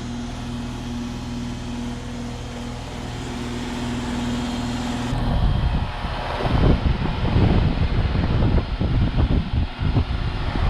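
1997 Carrier 38YCC heat pump running with a steady electrical hum, then shutting off abruptly about five seconds in. After the cutoff, an irregular gusty rumble like wind on the microphone takes over.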